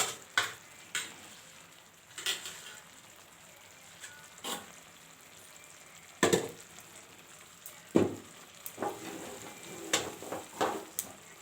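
Thin potato slices shallow-frying in a little oil on a tawa, with a faint steady sizzle. A spatula scrapes and knocks against the pan about ten times as the slices are stirred, more often near the end.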